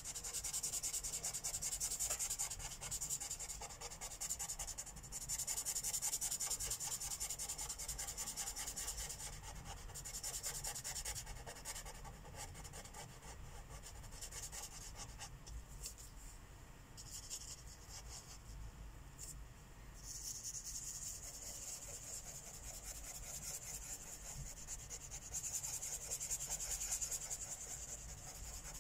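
Marker tips rubbing on paper in quick back-and-forth colouring strokes, a steady scratchy hiss that swells and eases as the strokes grow heavier and lighter.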